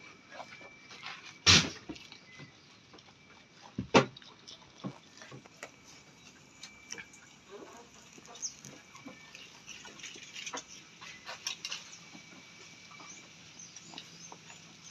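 Jawarandu goats feeding at a wooden trough: many small crunches and rustles as they pull and chew cut grass, with two loud knocks about one and a half and four seconds in.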